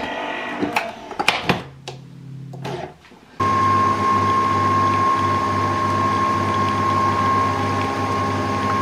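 Nespresso Vertuo capsule coffee machine brewing. There are a few clicks and knocks as it is closed and started, then about three and a half seconds in the motor starts abruptly: a loud, steady hum with a high whine while the coffee pours into the cup.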